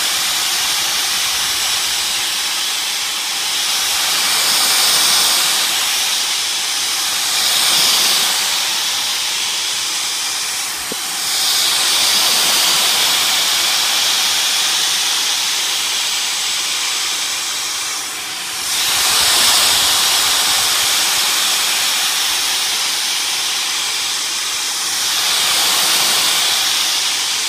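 A Dyson DC56 cordless vacuum runs at full suction, a steady, high airy hiss. It swells and eases several times as the nozzle is passed over a curtain, lifting cat hair.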